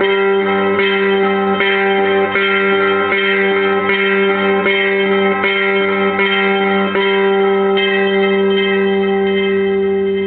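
Music: a steady held low drone with ringing notes struck at an even pace, about four every three seconds.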